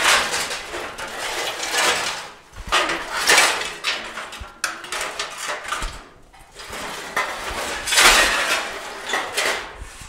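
Scrap pieces of old car-body sheet steel and rusty channel clattering and scraping against each other as they are picked through and shifted in a pile. The metal clanks come in irregular bouts and make a lot of noise.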